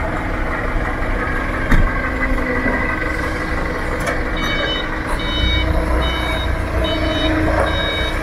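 Forklift engine running with a steady rumble that grows heavier about five seconds in, with a single knock a little under two seconds in. From about four and a half seconds in, a reversing alarm beeps repeatedly, about one beep every 0.7 seconds.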